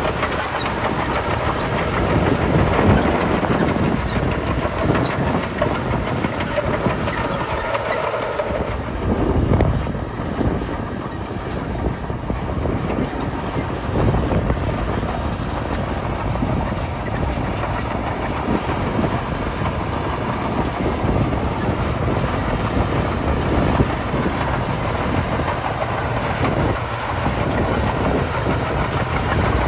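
Komatsu D41P crawler bulldozer's diesel engine running under load with a steady mechanical clatter as it pushes and spreads gravel.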